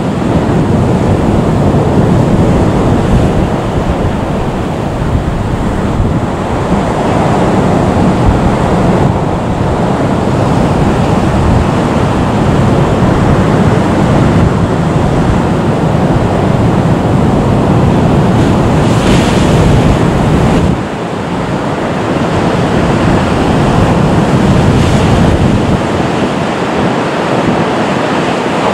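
Wind rushing over the microphone, loud and steady, with a short drop about twenty-one seconds in.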